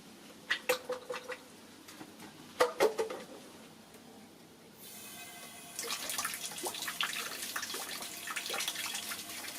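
A few sharp knocks and clatters in the first three seconds, then about five seconds in a tap is turned on and water runs and splashes steadily, as when a basin is filled for a bath.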